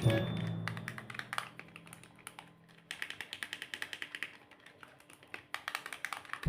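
Plastic toy figures being handled, giving many light, irregular clicks and taps. The last held note of the background music dies away in the first couple of seconds.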